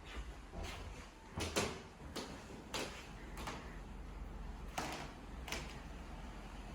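A series of irregular sharp knocks and clicks, about eight in all and spaced unevenly, over a steady low hum.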